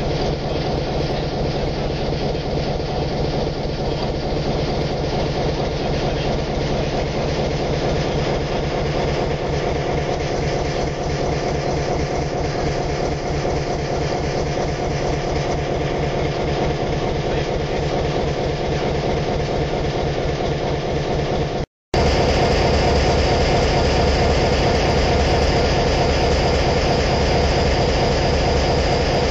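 EMD 567-series V16 two-stroke diesel engine of a NOHAB M61 locomotive idling steadily, with an even rhythmic beat. After a short break a little over two-thirds through, it is louder and closer, heard from inside the engine compartment.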